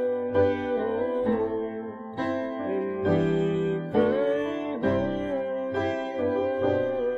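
Background music: a held, slightly wavering melody line over a steady pitched accompaniment.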